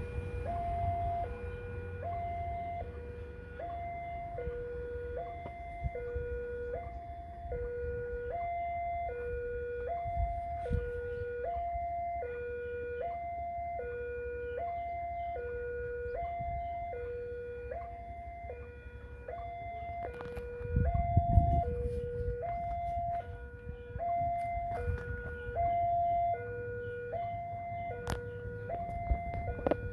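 Railway level-crossing warning alarm sounding while the barriers are down for an approaching train: an electronic two-tone chime alternating steadily between a higher and a lower note, about one high-low cycle every second and a half.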